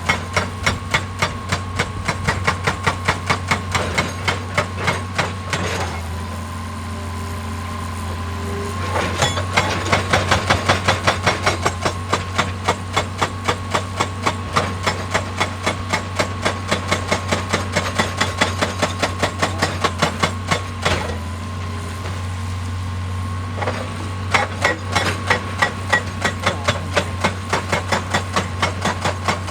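Excavator-mounted hydraulic breaker hammering rock in a fast, even run of blows, several a second, over the excavator's steady engine hum. The hammering stops for a few seconds about six seconds in and again about twenty-one seconds in, while the engine keeps running.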